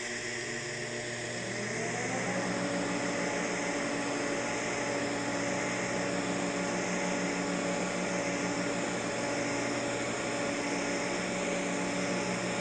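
DC TIG welding arc on thin-wall stainless steel tubing from a Miller Dynasty 400 at about 45 amps: a steady hiss, with the pipe positioner's motor humming as it turns the tube. A hum rises in pitch and levels off about two seconds in.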